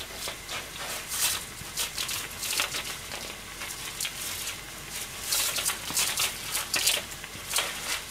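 Vegetable soup boiling hard in an aluminium yukihira pan on a gas stove: irregular bubbling and popping over a steady hiss.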